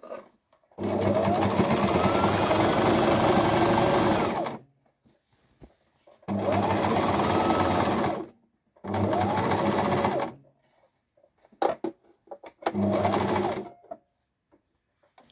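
Sewing machine stitching in four runs of a few seconds each, the motor speeding up at the start of each run, with a few sharp clicks between the third and fourth runs.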